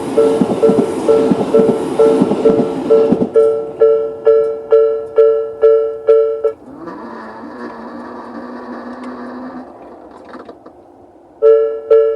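Japanese level crossing's electronic warning bell (Tobu "sound B") ringing at about two and a half strikes a second. For the first three seconds a passing train's running noise and wheel clatter sound under it; that noise cuts off sharply, and the bell stops about halfway through. A fainter steady hum with a high whine follows for a few seconds, then the bell starts ringing again near the end.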